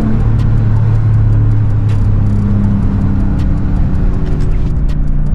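2021 Nissan Titan Pro-4X's 5.6-litre V8 running through true-dual Flowmaster Super 10 mufflers joined by an X-pipe, heard from inside the cab while driving. A steady low exhaust note that shifts in pitch about two seconds in and again near the end.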